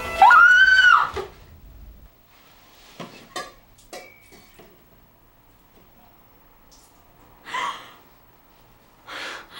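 A loud high-pitched wail that rises and then falls in pitch, lasting about a second. Then quiet, with a few soft clicks, and two short breaths near the end.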